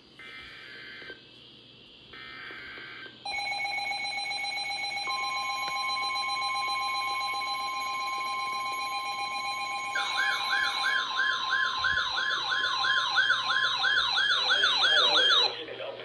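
Emergency Alert System alert tones heralding a storm warning for small craft. It opens with two short screechy bursts of the digital data header, then a steady electronic alert tone. A second steady tone joins about two seconds later, and a rapidly warbling up-and-down tone joins about ten seconds in, before everything cuts off just before the end.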